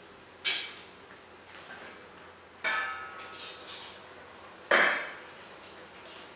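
Stainless steel cooking pot and its lid clanking three times, about two seconds apart, as the lid comes off and the pasta is stirred. Each clank rings briefly, and the last is the loudest.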